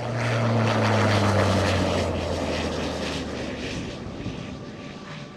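A steady engine drone that grows louder over the first second or so, then fades away.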